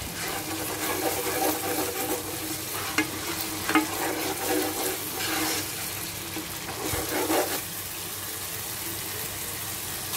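Thick onion-tomato masala sizzling steadily in hot oil in a pan on high flame, with a silicone spatula stirring and scraping it against the pan in uneven strokes. The stirring stops about three-quarters of the way through, leaving only the sizzle. The oil has separated on top, the sign that the masala is cooked.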